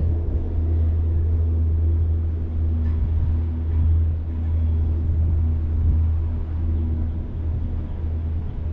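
Steady low rumble inside a Disney Skyliner gondola cabin as it rides along its cable.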